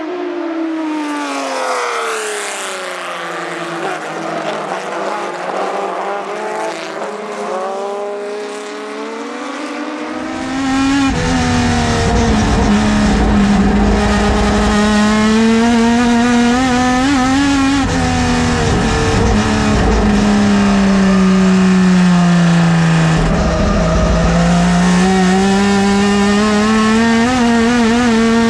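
TC Bonaerense Clase A race cars with four-litre six-cylinder engines heard from trackside, their engine notes falling as they slow into a corner and then rising again. About ten seconds in the sound switches to inside one car's cockpit: the engine is loud and deep, holding at high revs, falling slowly under braking, then climbing again as the car accelerates out of a corner near the end.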